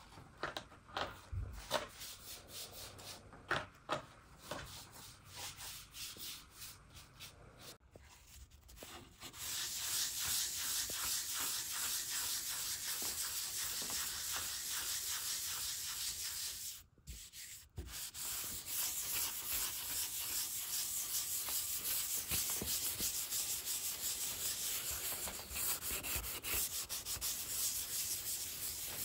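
Sandpaper rubbing over shellacked wood, a light sanding of the door's finish between coats. A few scattered strokes come first, then steady, fast sanding starts about a third of the way in, broken once by a short pause.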